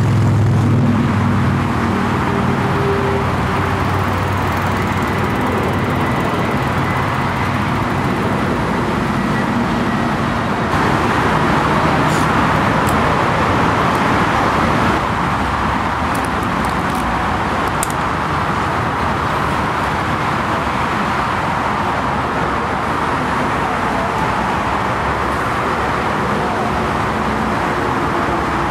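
Jet airliner engines on landing approach: a steady rushing noise with a faint high whine in the first part.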